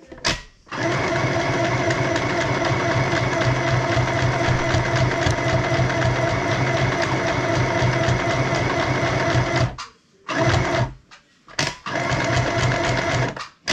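Small white mini electric sewing machine stitching: a brief burst, then one steady run of about nine seconds, then a few short stop-start bursts near the end.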